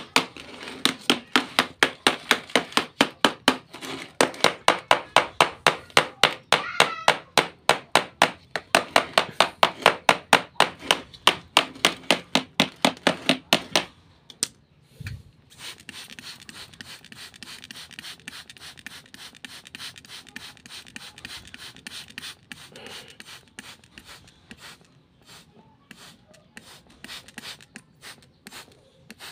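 Hand trigger spray bottle squeezed rapidly, each squeeze a short hiss of mist, about four a second; about halfway through the rapid spraying stops, leaving fainter, scattered squeezes.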